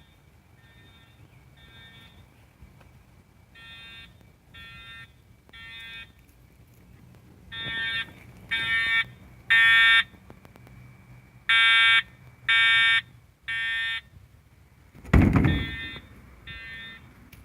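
Fire alarm horns sounding the temporal-three evacuation pattern: three short pitched blasts, a pause, then three again. The blasts are faint at first and much louder from about halfway. A single loud thump comes near the end.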